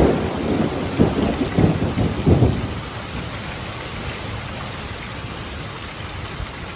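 Storm wind above 70 mph with heavy rain: several hard gusts buffet the microphone in the first two and a half seconds, then a steady rush of wind and rain. The storm is a straight-line wind, not a hurricane or tornado.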